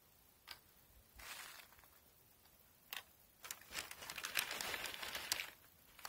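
Paper bag crinkling and peanuts in the shell clicking and clattering as they are handled and set out on the ground: a few separate clicks, then a dense stretch of crackling for about two seconds past the middle.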